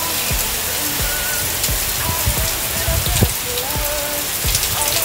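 Rain falling onto wet, waterlogged ground, a steady hiss.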